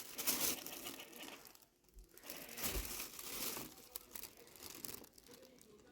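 Irregular crinkling and rustling in short bursts, with a pause about two seconds in.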